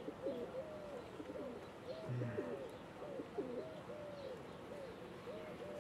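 Honeybees buzzing around an open hive: a steady hum from many bees, with single bees flying close by, so the pitch keeps wavering up and down.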